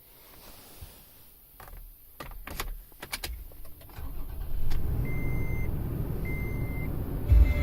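Key clicks at the ignition, then the 2013 Toyota Tacoma's engine cranks and catches about four seconds in and settles into a steady idle. A dashboard warning chime beeps in evenly spaced tones over the idle.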